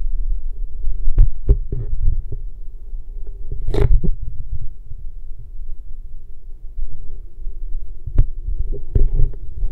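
Underwater sound picked up through an action camera's waterproof housing in shallow sea water: a steady low rumble of moving water with a faint hum, broken by several sharp clicks and knocks and a brief louder splash of water noise about four seconds in.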